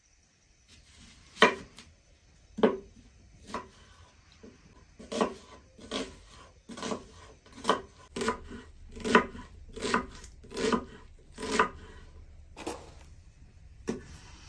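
Kitchen knife cutting onions on a thick wooden cutting board: a series of sharp knocks as the blade goes through and strikes the board, irregular at first and then about one a second.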